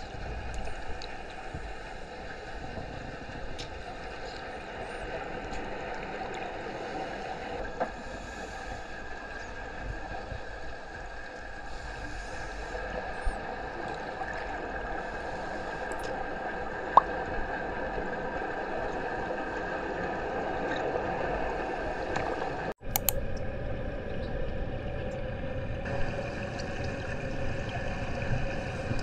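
Underwater pool ambience picked up by a submerged camera: a steady, muffled water rush with a constant hum under it and a few faint clicks. There is a brief dropout about three-quarters of the way through.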